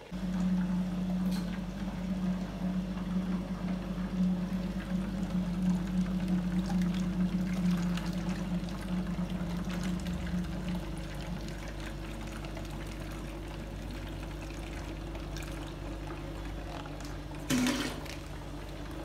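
Water sloshing and bubbling in a brine shrimp hatching bottle as fresh water is poured in, over the steady hum of an aquarium air pump. The water noise is strongest for about the first ten seconds, then settles to the pump's steady hum, with a brief louder noise near the end.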